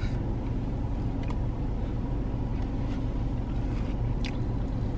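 Steady low hum of a car idling, heard from inside the cabin, with a couple of faint clicks.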